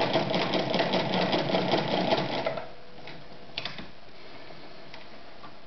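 Podolsk 142M electric sewing machine stitching fabric at speed with a rapid, even rattle, then stopping about two and a half seconds in; a couple of faint clicks follow.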